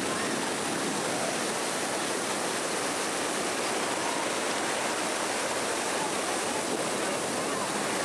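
Steady wash of ocean surf breaking and running up the beach, with faint distant voices of a crowd mixed in.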